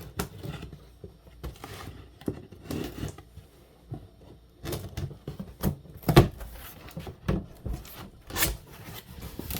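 A cardboard shipping box being opened and its contents handled: irregular knocks, scrapes and rustles, the loudest knocks about six and eight and a half seconds in.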